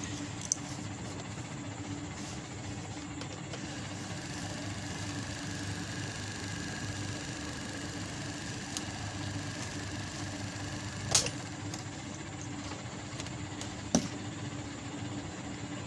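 A steady mechanical hum with a constant low tone, broken by three short sharp clicks: one about half a second in, one around eleven seconds and one near fourteen seconds.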